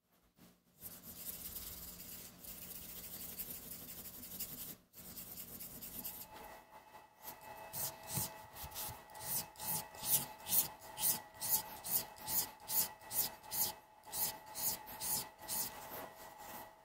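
Kiridashi's 52100 steel blade being sharpened by hand on a wet whetstone. For the first few seconds there is a steady scraping. Then, from about seven seconds in, it changes to regular back-and-forth honing strokes, about two a second.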